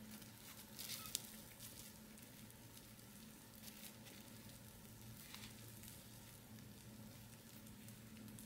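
Faint crackle of a fried fritter's crisp crust as fingers squeeze and tear it open, in a few short bursts with one sharp click about a second in, over a low steady hum.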